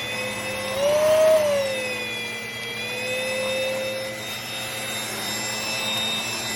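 Cordless stick vacuum cleaner running with a steady motor whine; about a second in its pitch and loudness rise briefly, then fall back and hold steady.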